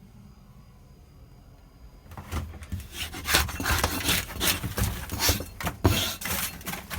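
Rough scraping and rubbing at damp, rotten plywood wallboard, a fast, irregular run of strokes starting about two seconds in.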